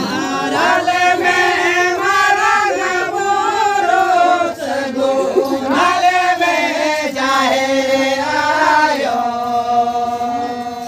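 Men singing a Santali Lagre song (Lagre sereng) to harmonium accompaniment. The singing stops about nine seconds in, leaving the harmonium holding a steady chord.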